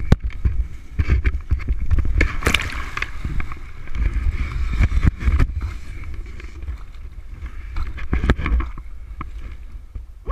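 Lake water splashing and sloshing around a head-mounted camera as a paraglider pilot lands in the water under his reserve parachute, with irregular knocks and heavy rumble of water and wind buffeting the microphone.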